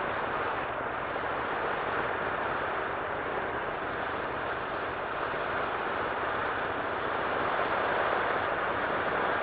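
Steady rush of wind blast and aircraft noise at the open jump door of a C-47 in flight, an even roar with no break or change.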